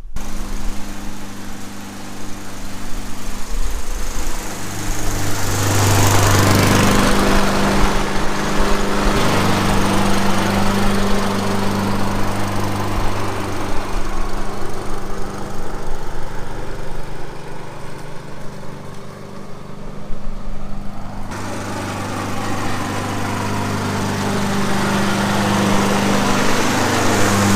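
Honda HRR216 self-propelled lawn mower running steadily while cutting grass with newly fitted, sharpened blades. A louder rush of noise swells up about five seconds in and eases off a few seconds later.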